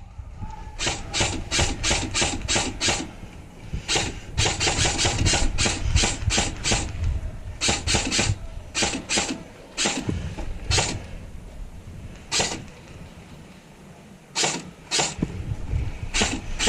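Airsoft rifle firing quick strings of shots, several a second, with short pauses between the strings.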